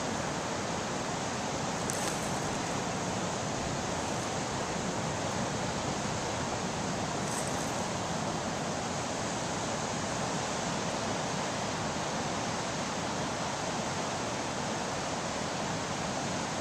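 Ocean surf breaking on a sandy beach: a steady, even wash of waves with no break in it.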